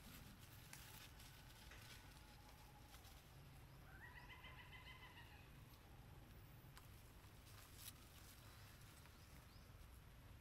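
Near silence, with one faint animal call about four seconds in that lasts about a second.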